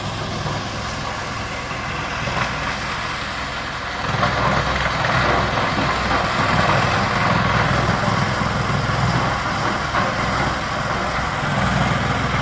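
GX2113 industrial wood chipper and crusher running with a steady low hum. About four seconds in it gets louder and noisier.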